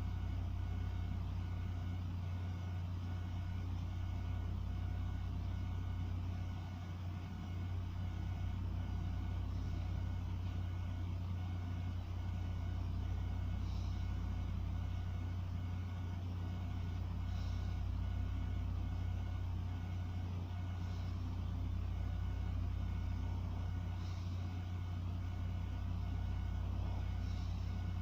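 A steady low hum, with a sleeping person's faint, slow breathing repeating about every three and a half seconds.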